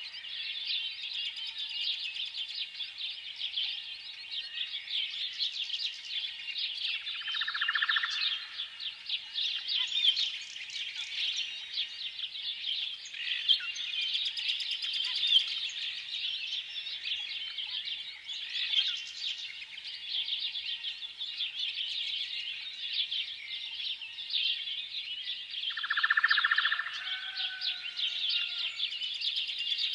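A dense chorus of many small birds chirping without a break, with a few louder, lower calls standing out about a quarter of the way in and again near the end.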